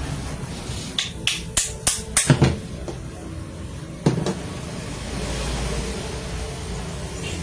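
Six quick sharp taps, about a third of a second apart, starting a second in, then a single knock about four seconds in. A low rumble follows near the end.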